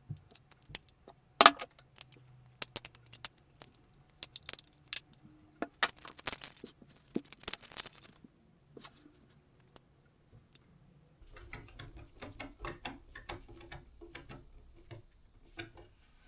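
Scattered sharp clicks and taps of small plastic and metal parts being handled and worked with hand tools while a Continental kit is fitted to a plastic RC car body. From about eleven seconds in, a faint low hum runs under a quicker string of small clicks.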